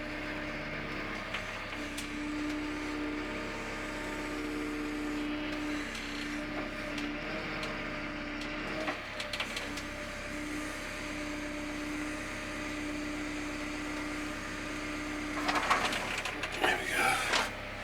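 Cat 320 excavator's diesel engine running at idle, heard from inside the cab, with a steady whine over a low hum. A clatter of knocks and rattles comes near the end.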